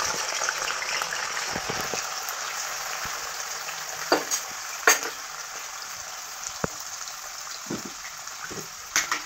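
Food frying in hot oil in a stainless steel kadai on a gas flame: a steady sizzle that eases slightly as it goes on, with three sharp pops, two near the middle and one near the end.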